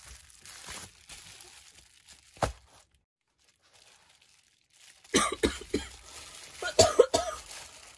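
Bubble wrap crinkling softly as hands handle a wrapped parcel, with a single sharp click about two and a half seconds in. From about five seconds in, a woman coughs several times.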